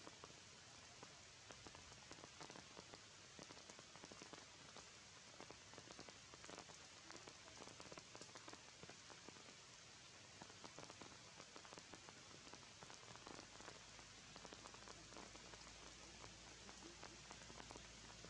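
Faint, steady rain falling through tree foliage, a fine patter of many small drops.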